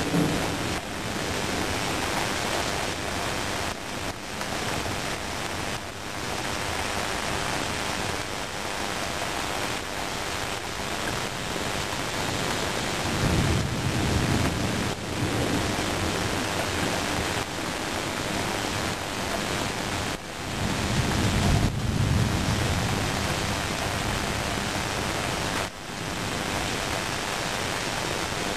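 Heavy rain falling steadily, with thunder rumbling low twice: once about halfway through and again about three-quarters of the way through.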